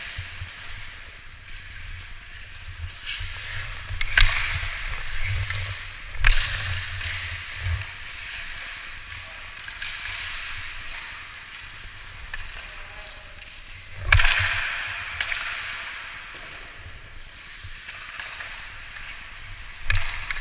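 Hockey skates scraping and carving on ice in a hiss that swells and fades. Sharp clacks of stick on puck or puck on boards come through it, the loudest about four, six and fourteen seconds in.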